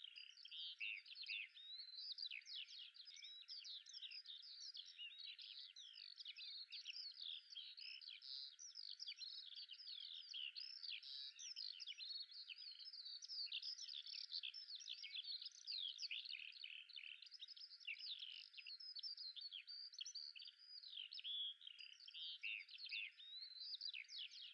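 Faint, continuous chorus of many small birds chirping and twittering, dense overlapping quick calls. It sounds thin and high, with all the low end filtered away.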